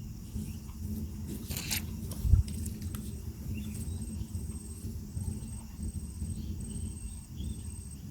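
An insect calling in a steady series of short, high chirps, about two a second, over a low rumble of wind or handling noise. There is a brief rustle about one and a half seconds in, and a dull thump just after it.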